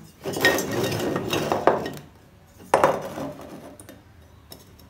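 Pieces of 3×3 cm square hollow steel tube being slid and set down on a wooden workbench: metal scraping and clinking for about two seconds, then a single sharp knock a little past halfway that rings briefly.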